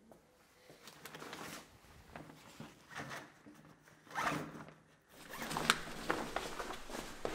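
Zipper of a fabric sports bag being pulled in short strokes, the strongest about four seconds in. From about five seconds on, the bag's fabric rustles, with sharp clicks as it is picked up by its strap.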